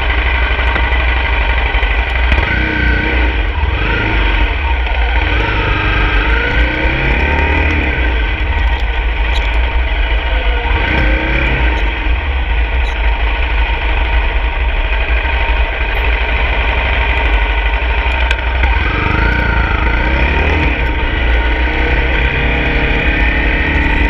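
Honda CRF250 dirt bike's single-cylinder four-stroke engine running under way, with a heavy low rumble. The engine note rises and falls with the throttle a few times, most clearly around 3 to 8 seconds in, near 11 seconds and around 19 to 21 seconds.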